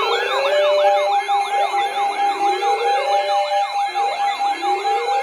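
Several emergency sirens sounding at once: a fast yelp sweeping up and down about four times a second, over a steady held tone and slower rising wails.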